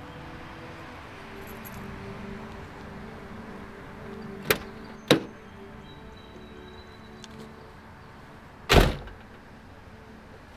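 A car door is opened with two sharp clicks a little over halfway through, then slammed shut with a heavy thud near the end, over faint steady background music.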